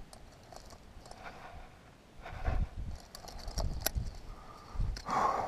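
Climbing gear on a harness rack (aluminium carabiners, cams and nuts) clinking and jangling in scattered clicks as a hand sorts through it, with low rumbles between.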